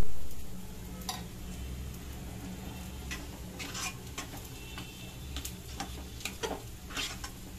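Metal spatula stirring thick cooked besan dough in a nonstick pan, with scattered scrapes and taps against the pan over a low steady hum.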